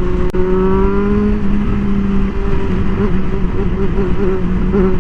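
Motorcycle engine running at a steady cruise under wind rumble, with a brief click just after the start; from about three seconds in the engine note wobbles rhythmically, about three times a second, a weird gulping noise that the rider can't account for.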